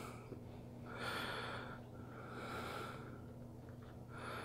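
A person breathing audibly through the nose, three slow, soft breaths about a second long each.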